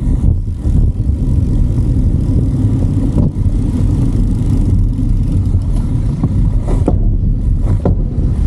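Wind buffeting the microphone of a bike-mounted camera while riding: a loud, steady low rumble, with a few light knocks near the end.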